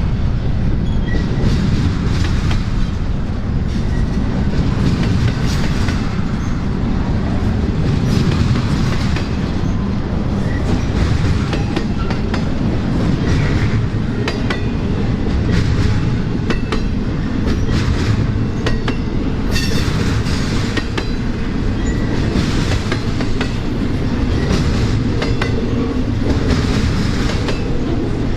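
Freight train cars rolling past on the CSX line: a steady low rumble with wheels clicking over the rail joints all the way through.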